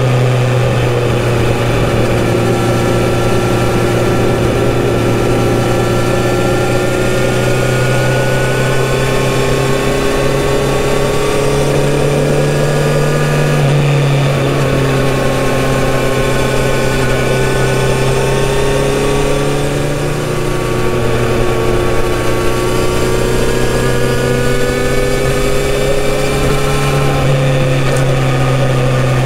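Kawasaki Z900RS inline-four engine and exhaust running steadily while cruising, its pitch drifting slowly up and down with small throttle changes.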